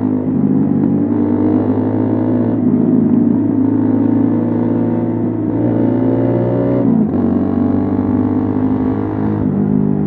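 Keeway Cafe Racer 152's single-cylinder engine running through an Akrapovic full-system exhaust with the dB killer fitted, heard from the saddle while riding. The exhaust note climbs for about a second and a half, then drops sharply about seven seconds in, as on an upshift.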